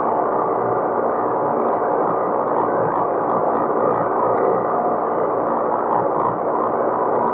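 Farm tractor running steadily while working hay, a constant unbroken engine and machinery drone.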